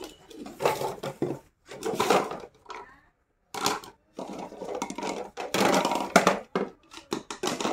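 PVC plumbing fittings being handled and packed, knocking and rustling together in irregular bursts.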